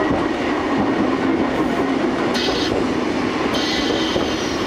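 Vintage Kotoden electric railcar set (Deha 120 and Deha 500) running along the track, heard from inside the cab as steady running and rail noise. Two brief high-pitched sounds come about a second apart midway through.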